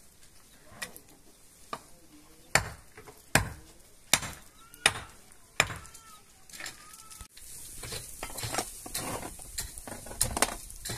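A series of sharp knocks, about one every three-quarters of a second, then a sudden change to a busier stretch of clattering and scraping.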